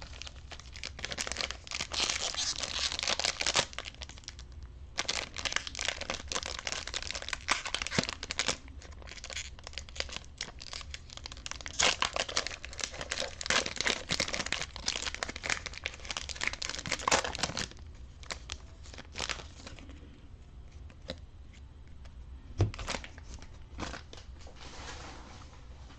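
Foil trading-card pack wrapper crinkling and tearing as it is ripped open and handled, in several long bouts of crackly rustling. A single sharp knock about three-quarters of the way through.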